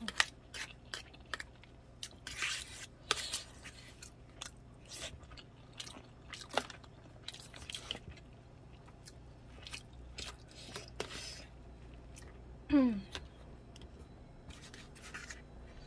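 Close-up eating sounds: a spoon clicking and scraping against plastic food containers while rice is scooped and chewed. There is a brief falling 'mm'-like voice sound about 13 seconds in.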